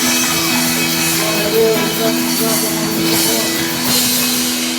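Live worship band playing rock-style music, with steady held chords over drums.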